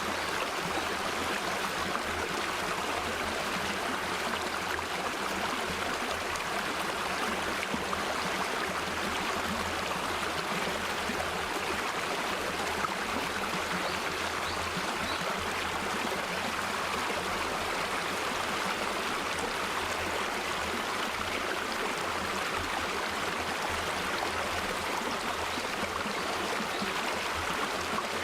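Mountain valley stream flowing, a steady, even rush of water with no pauses.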